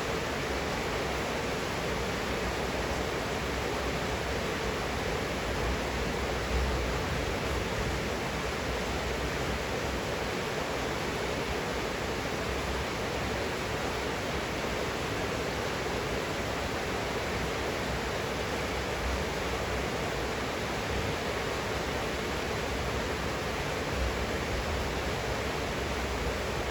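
Steady heavy rain falling, a continuous even hiss with no breaks.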